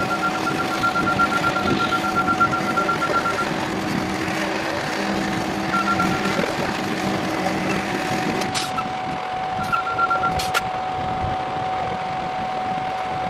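Concrete pumper truck running on site: a steady whine throughout, with the engine's drone fading out about eight seconds in. A fast electronic beeping comes and goes over it, and two sharp clicks sound late on.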